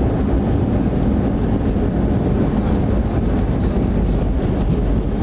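Steady, loud low rumble of a landing jet airliner.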